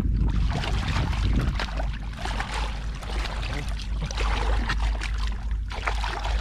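Shallow water splashing and sloshing irregularly as hands and legs work through a flooded rice field, over a steady low rumble.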